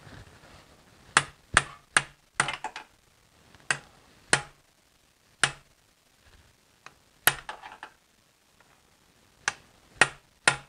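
Hammer tapping a pry bar wedged against the inner end of a CV axle: about a dozen sharp metallic strikes at an uneven pace. They drive the axle's circlip to compress so the axle pops out of the front differential.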